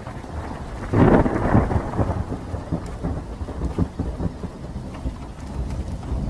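Thunderstorm sound effect: steady rain with a loud rumble of thunder about a second in, then a lower rolling rumble that carries on under the rain.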